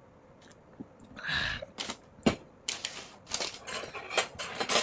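Tableware clinking and clattering: after a quiet first second, a brief rustle, then a quick run of sharp clicks and knocks.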